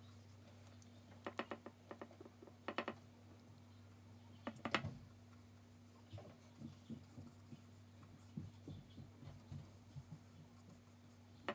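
Light, irregular taps and clicks of a paintbrush working on watercolour paper taped to a board, with small clusters of quick ticks and one louder knock a little under halfway through, over a steady low hum.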